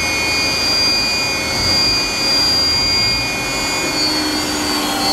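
Okamoto OGM-1236UB universal cylindrical grinder running with its internal (ID) grinding attachment spindle just started: a steady high-pitched whine over an even hiss and hum, which the operator calls nice and quiet. Near the end the whine dips slightly in pitch.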